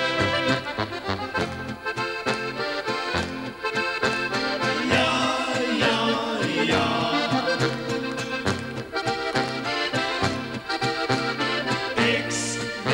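Slovenian polka band playing: a trumpet, trombone and clarinet line at the start gives way after a few seconds to accordions leading over a steady oom-pah bass.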